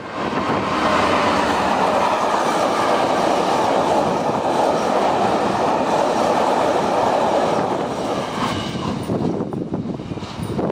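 A Class 66 diesel locomotive and its long train of empty ballast wagons rolling past close by, wheels clattering on the rails in a steady loud rumble. The noise fades from about eight seconds in as the wagons draw away.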